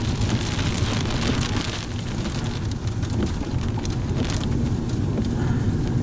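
Rain pattering on a moving car, heard from inside the cabin over the steady low rumble of the road and engine. The patter is heavier for the first two seconds, then thins out.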